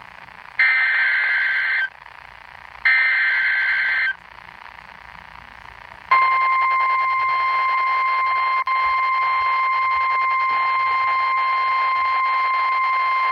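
NOAA Weather Radio emergency alert: two buzzing bursts of the SAME digital header, each about a second long and a second apart. About six seconds in, the steady 1050 Hz warning alarm tone begins and holds, with a momentary dropout. The tone signals a warning-level alert and sets off tone-alert weather radios.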